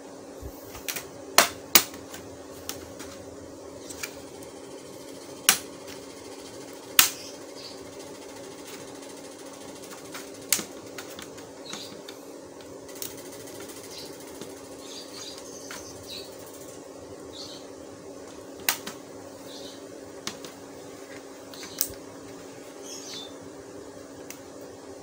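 Plastic case clips of an Asus X42DE laptop snapping loose one after another as the edge is pried open with a pry tool: sharp clicks at irregular intervals, the loudest in the first seven seconds, over a steady low hum.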